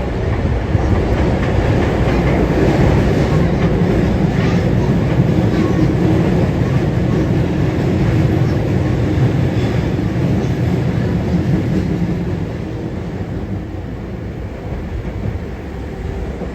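Osaka Metro 22 series subway train running between stations, heard from inside the car: a steady rumble of wheels on rail with a faint steady whine, easing off a little about twelve seconds in.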